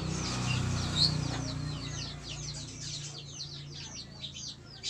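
Chickens in the background: a steady run of short, high, falling chirps like chicks peeping, with one louder chirp about a second in, over a low steady hum.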